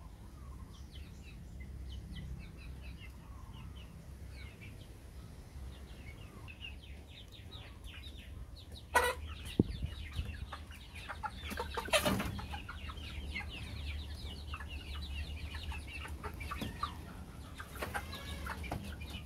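Young chickens in a cage calling and clucking, with many short high calls throughout. Two sudden louder outbursts come about halfway through, over a steady low rumble.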